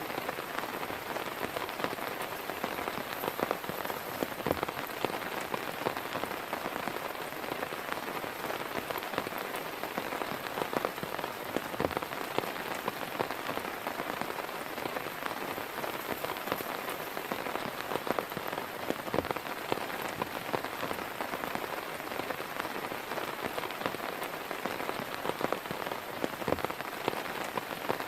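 Heavy rain falling steadily, pattering on a surface close by, with a few louder single drops striking now and then.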